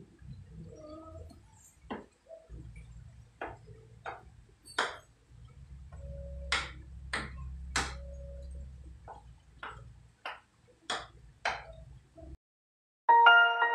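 A spoon clinks and scrapes irregularly against a mixing bowl while stirring thick brownie batter, about twenty sharp clicks over a low steady hum. Chime-like music starts just before the end.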